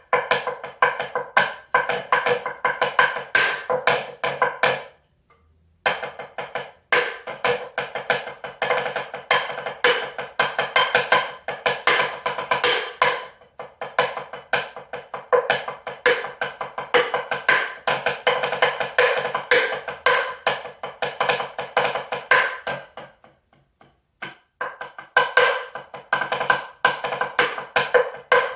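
Hand percussion: a fast, continuous run of hand strikes with a pitched, woody ring, breaking off briefly about five seconds in and again near the end.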